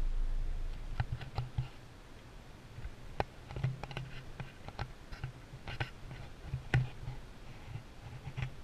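Handling noise on an action camera: irregular sharp clicks and light knocks close to the microphone, starting about a second in, as the camera is moved.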